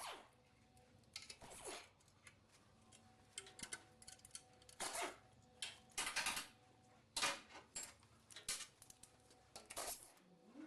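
Irregular clinking and short scraping of metal engine parts and tools being handled on a workbench, a dozen or so sharp clicks and clatters with several longer scrapes, over a faint steady hum.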